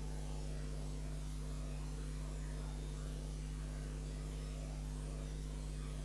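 Steady low electrical hum with an even hiss behind it, unchanging throughout.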